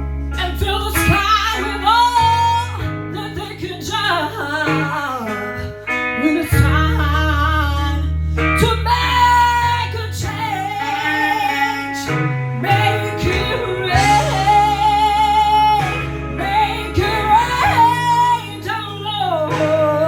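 Music: a woman singing long, wavering notes without clear words, over guitar and sustained low bass notes.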